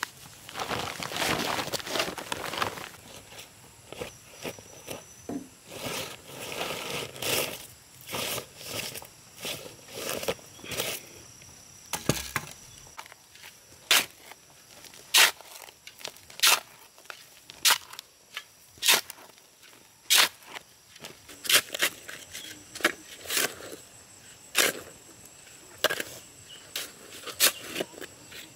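Rustling and shuffling for the first few seconds, then a long series of sharp single knocks, roughly one a second.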